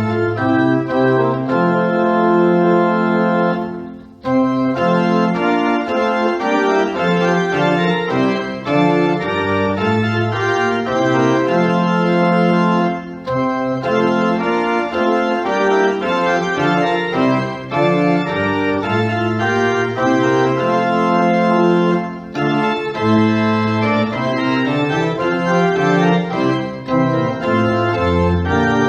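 Organ music: slow, held chords that change from note to note, with brief breaks between phrases about 4, 13 and 22 seconds in.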